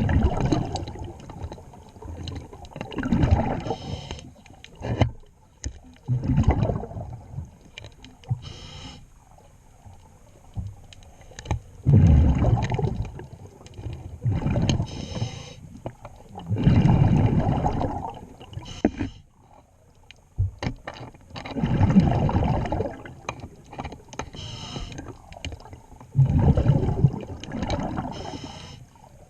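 Underwater breathing of a scuba diver: bubbles rumble out of the regulator's exhaust in surges every few seconds, with a thin hiss of inhaling through the regulator between some of them.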